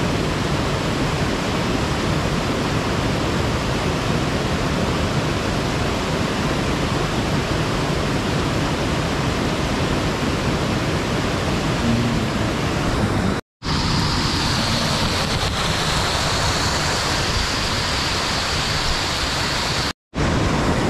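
Waterfall: steady rushing of falling water. It cuts out briefly twice, about thirteen and twenty seconds in. After the first break a steady high-pitched hiss sits on top of it.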